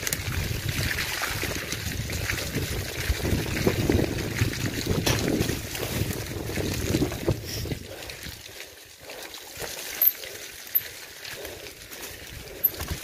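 Mountain bike ride noise on a muddy trail: wind buffeting the microphone and tyres rumbling through mud and over rough ground. The rumble eases after about eight seconds, with a few sharp knocks near the end.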